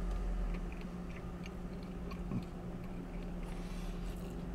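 A man chewing a mouthful of crispy chicken burger with his mouth closed, with small wet clicks of chewing over a steady low hum.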